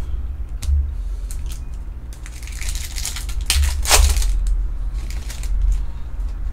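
The foil wrapper of a 2020 Topps Chrome Formula 1 trading-card pack crinkling as it is torn open by hand, loudest about three and a half to four seconds in, after a few light crackles as the pack is picked up.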